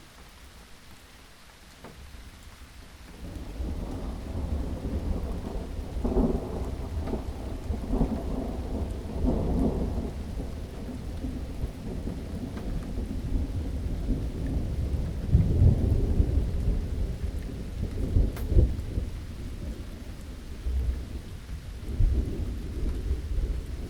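Steady rain falling, with thunder rumbling in about three seconds in and swelling louder several times.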